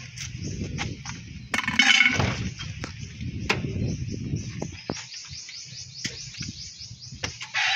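Scattered knocks and clatter from hand work on the vehicle's front suspension, with a louder scraping burst about two seconds in. A bird trills briefly in a quick run of high chirps near the end.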